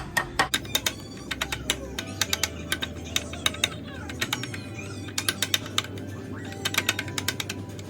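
Quick runs of clicks and taps of a utensil against plastic food containers, over a background of television music and voices.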